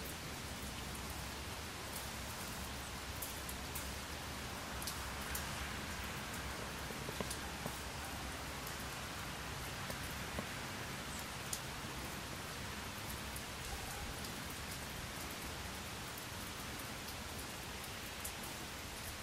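Steady hiss of falling rain or sleet, with many small scattered ticks of drops landing.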